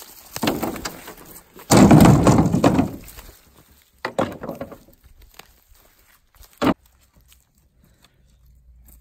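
Dry sticks and branches tossed into a wooden box, clattering and knocking on the boards. The loudest crash, a big armful landing, comes about two seconds in, with a single sharp knock near the end.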